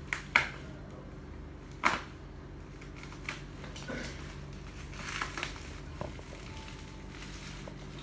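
Plastic and packing-tape wrapping on a long parcel crinkling and crackling as it is handled and cut open with a knife: two sharp cracks in the first two seconds, then softer clicks and rustling.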